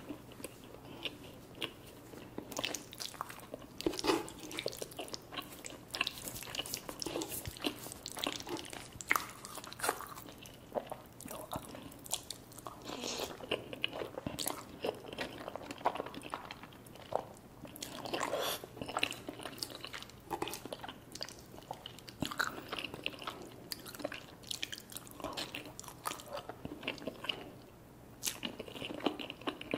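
Eating sounds of a person having chicken wings and creamy Alfredo pasta: repeated irregular biting, chewing and crunching.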